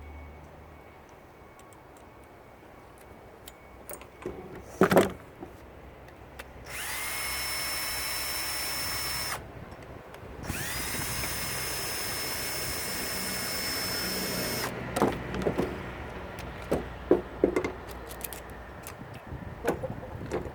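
Power drill spinning up and running steadily twice, about two and a half seconds and then about four seconds, backing out screws from a shop vac motor's brush housing. A sharp knock comes before the drill, and scattered metal clicks and clanks of parts being handled follow.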